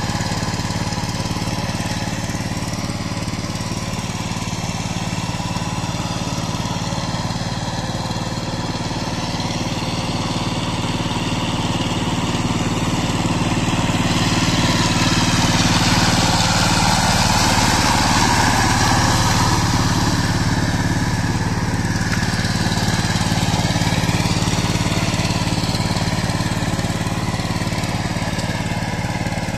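Two-wheel power tiller's single-cylinder diesel engine running steadily as it pulls a rotavator through mud. It grows louder about halfway through as the tiller comes close, then fades a little as it moves off.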